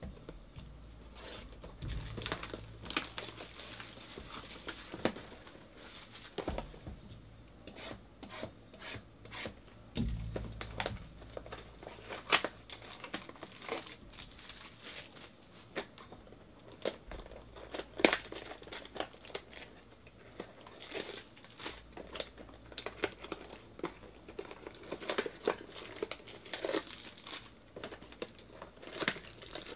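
Plastic wrapping on trading card packs and boxes crinkling and tearing, mixed with cardboard rustles and taps from a card box being opened. The sound comes in irregular handling noises, with a few sharper clicks.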